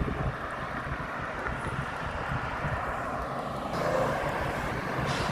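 Steady engine and road-traffic rumble from passing vehicles, growing louder about two-thirds of the way through.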